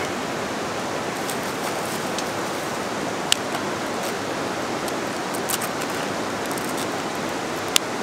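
River rushing close by: a steady, even roar of running water. Two brief sharp clicks break through it, about three seconds in and near the end.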